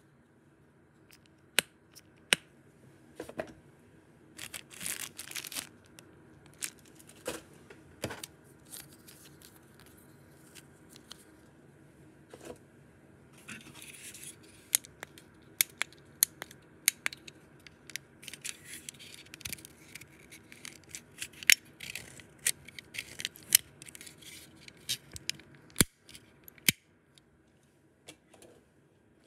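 Small plastic toys and their cardboard and plastic packaging being handled: irregular sharp clicks and taps mixed with stretches of rustling and crinkling.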